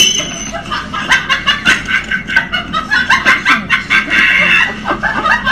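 Laughter in quick repeated bursts of snickering.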